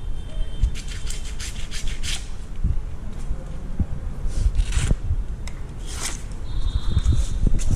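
Rubbing and scraping with scattered clicks and knocks, from hands and tools working on motorcycle parts.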